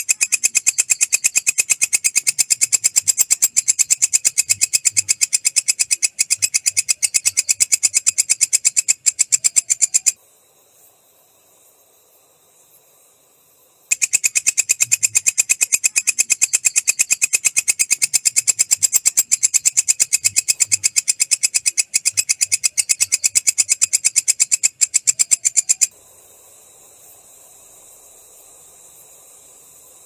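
A walang kecek, a green katydid, singing as a rapid, even train of loud ticks. The song breaks off about ten seconds in, starts again about four seconds later, and stops again near the end, leaving only a faint thin tone.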